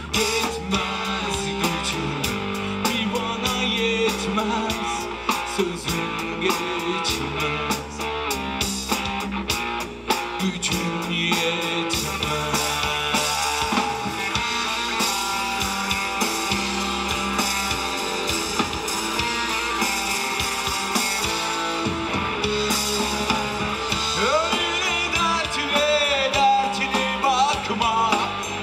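Live rock band playing amplified: electric guitars, bass guitar and a drum kit with cymbals.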